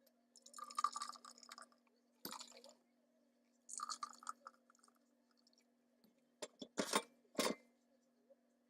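Someone eating cooked lobster: three crackly, crunchy bursts of chewing and shell breaking, then a few sharp clicks near the end.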